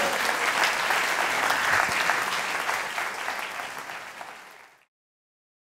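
Audience applauding, a dense patter of clapping that fades out about four to five seconds in.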